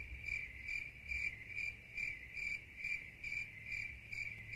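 A cricket chirping steadily at an even pace, about two to three chirps a second.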